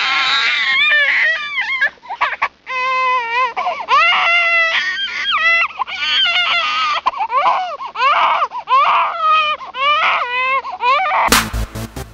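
A high-pitched voice crying and whimpering in long wavering cries that bend up and down in pitch, without words. About a second before the end, electronic music with a beat cuts in suddenly.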